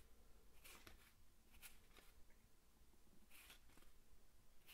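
Near silence, with a few faint, short swishes of cardboard game cards being slid apart and shifted between the hands.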